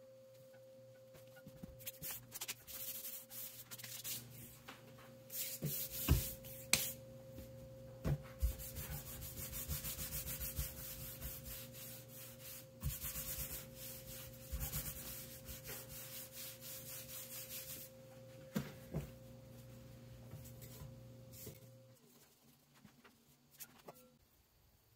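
Hands rolling and rubbing sourdough baguette dough against a countertop: an irregular soft rubbing with a few light knocks. A faint steady hum runs underneath and stops near the end.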